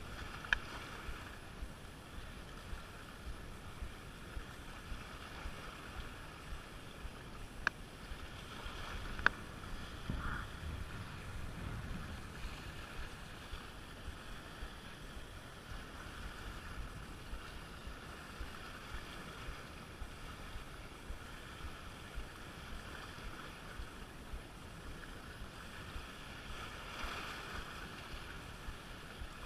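Small waves lapping and splashing against rocks right at the camera, with frequent little splashes and a couple of sharp knocks about eight and nine seconds in.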